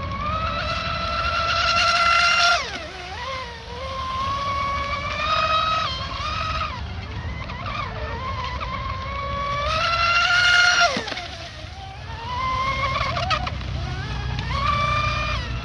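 High-pitched whine of an RC speedboat's 4074 2000kV brushless motor and two-blade prop running hard laps. It climbs in pitch and loudness to two peaks, each followed by a sudden steep drop in pitch, with shorter, quieter climbs between them.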